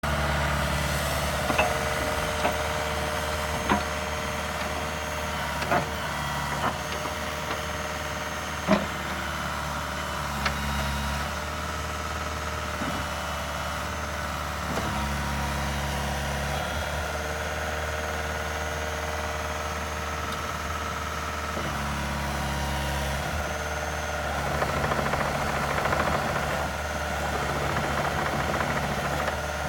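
Bobcat 435 compact excavator's diesel engine running steadily. Its tones step up and down every few seconds, sharp knocks come several times in the first ten seconds, and it grows rougher and louder near the end.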